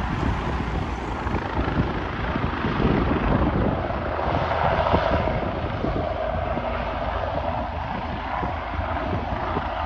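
Bell 429 twin-turbine helicopter air-taxiing low: steady rotor chop with a turbine whine that swells about four to six seconds in, with wind on the microphone.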